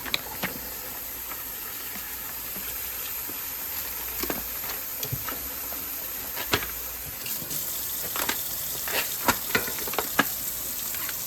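Food sizzling in a hot pan, a steady hiss, with scattered clicks and knocks of kitchen utensils.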